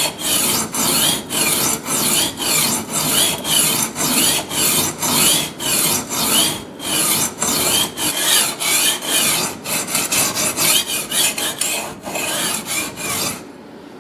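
Knife blade stroked back and forth on a 220-grit diamond sharpening plate, a gritty scraping about two strokes a second, working the edge until a burr forms. The strokes stop shortly before the end.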